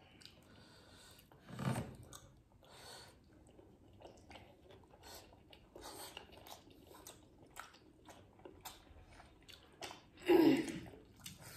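Close-up mouth sounds of people chewing steamed chicken momos: wet smacking and small clicks throughout. Two short louder sounds stand out, one about two seconds in and another near the end.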